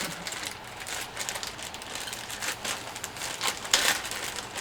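Crinkling and rustling from hands handling objects, broken by many short crackles, with a louder rustle a little before the end.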